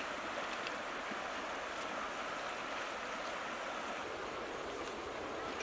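Shallow river rippling over stones, a steady, even rush of running water.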